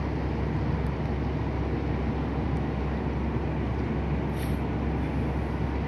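Steady low machinery rumble with a constant hum from a cruise ship as it berths.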